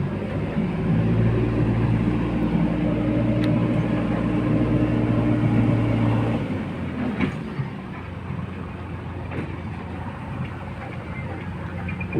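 Diesel engine of a JCB backhoe loader working under load while loading soil, its note strong and steady, then easing to a lower, quieter running about six seconds in.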